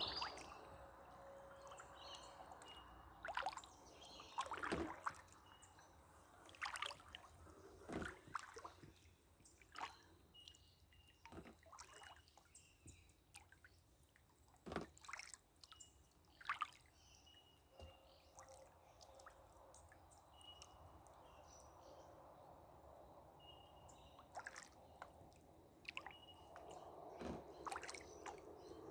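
Canoe paddling on calm water: quiet scattered drips and small splashes off the paddle, short and sharp, a second or two apart.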